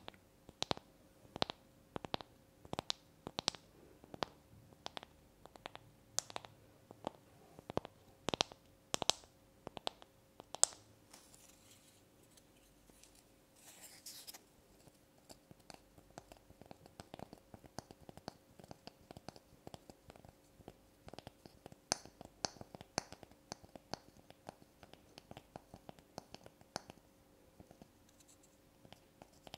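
Long fingernails tapping on small blocks of light wood close to the microphones. At first the taps are crisp and separate, about two a second; after a short scratchy hiss midway they turn lighter and quicker, with a few louder taps among them.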